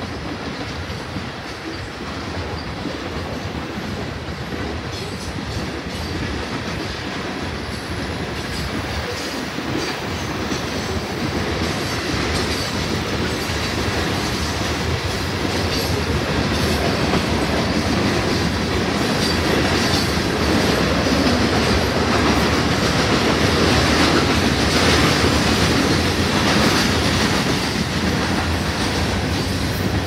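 Long string of empty coal hopper cars rolling by, wheels clacking over the rail joints with some squeal, getting steadily louder.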